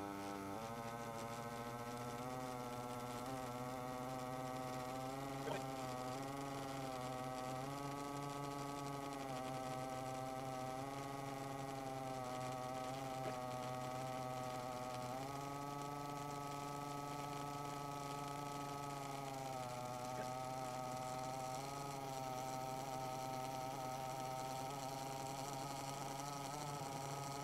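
Viair 85P 12-volt portable tire compressor running steadily with a buzzing hum while inflating a flat truck tire, its pitch shifting slightly every second or two.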